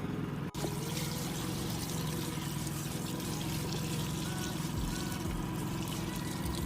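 Water pouring steadily from a container into the wash tub of a portable twin-tub washing machine, with a gas generator running underneath. The sound cuts out briefly about half a second in.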